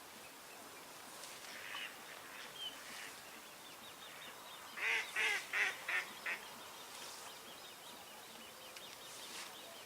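Goose honking about five times in quick succession about five seconds in, over quiet open-air background with a few faint bird chirps.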